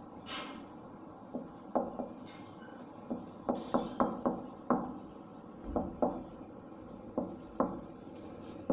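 Marker pen writing on a whiteboard: an irregular run of short taps and scrapes as the tip strikes and drags across the board to form letters.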